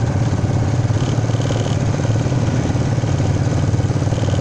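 Off-road vehicle engine running steadily at a low, even speed.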